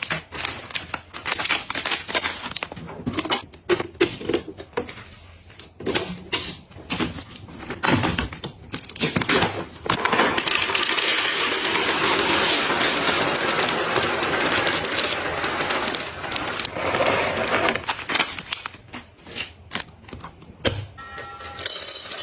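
Clicks and taps of small containers and packaging being handled and set down. A steady rushing noise runs for about seven seconds midway, then the clicking resumes.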